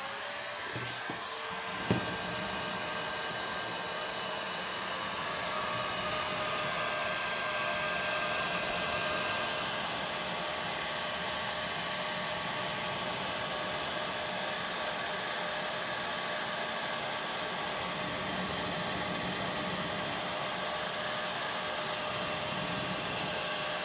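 Electric heat gun running steadily, its fan blowing with a steady whine, heating heat-shrink insulating wraps around crimped aluminum-to-copper wire connectors; a single click about two seconds in.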